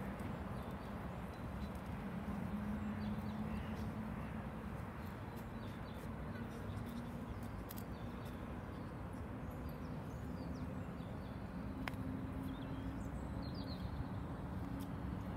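Steady outdoor background noise with a low, steady hum under it and a few faint bird chirps near the end.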